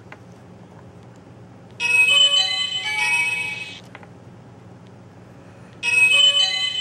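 WTV020-SD-16P sound module playing a short tune-like WAV clip through a small loudspeaker, once about two seconds in and again near the end, over a steady low hum.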